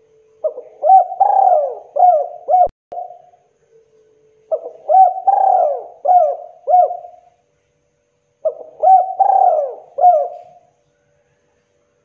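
Spotted dove (tekukur) singing: three cooing phrases about four seconds apart, each a quick run of several coos that rise and fall in pitch.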